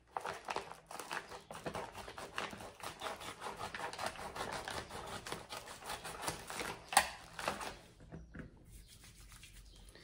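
Packaging being opened by hand: a rapid, scratchy rustling and tearing, with one sharp snap about seven seconds in, then quieter handling.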